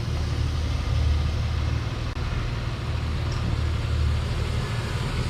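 Ford AU Falcon engine idling steadily.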